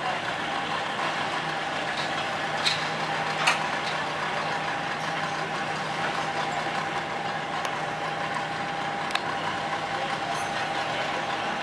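Engine idling steadily, with a few sharp clicks about two and a half, three and a half and nine seconds in.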